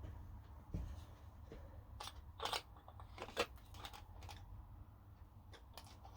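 Scattered light clicks and taps of small parts or hand tools being handled, the loudest about midway, over a low steady hum.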